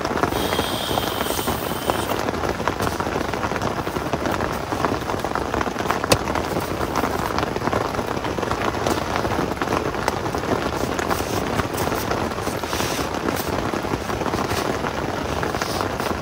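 Heavy rain falling steadily on a tent, heard from inside the tent, with a single sharp tick about six seconds in.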